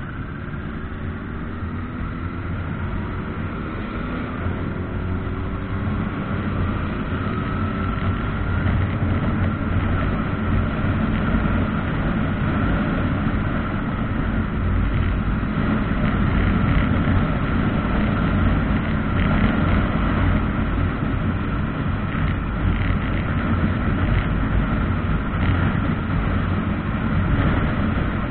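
Motorcycle riding away and accelerating: engine pitch rises over the first several seconds. Wind rush on the microphone builds as speed increases.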